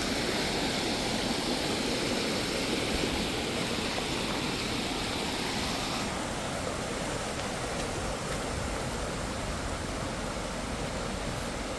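Rain-swollen mountain creek rushing fast over rocks: a steady, loud rush of rapids. About six seconds in, the higher hiss drops a little.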